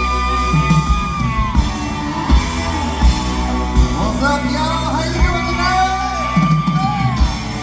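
Live country-rock band playing through a PA: drums, bass and electric guitars, with kick-drum thumps. A long held high lead note bends at the start and again about five seconds in.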